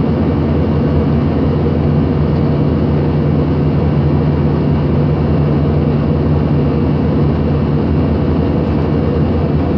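Steady cabin noise of an airliner in flight: the rush of engines and airflow with a low drone underneath, heard through the cabin.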